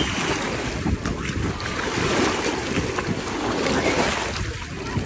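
Small sea waves washing and breaking at the shoreline in shallow water, with wind buffeting the microphone.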